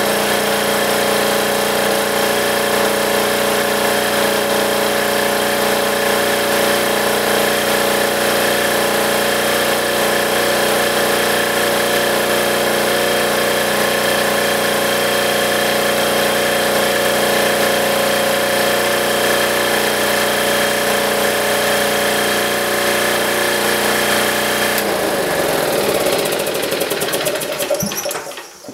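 Small military diesel generator engine running steadily with its spark arrestor fitted. The owner blames the arrestor's back pressure for making the engine bog down and crackle. About 25 s in it is shut off and winds down, its pitch falling until it stops.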